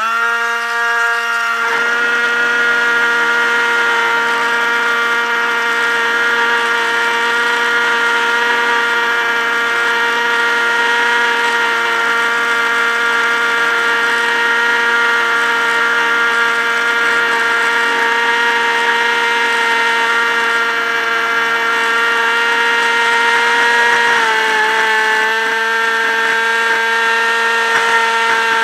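Electric motor and propeller of a Multiplex EasyStar RC glider, heard from a camera mounted on the model. It spins up at the start and then runs with a steady whine, dipping slightly in pitch about 24 seconds in.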